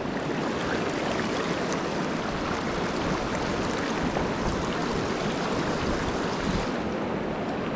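Shallow, clear river running over stones and boulders: a steady rush of water with no change.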